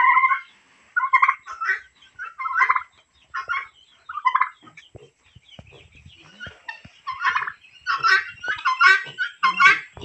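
Domestic turkey toms gobbling again and again, short rattling gobbles about once a second, with a lull midway.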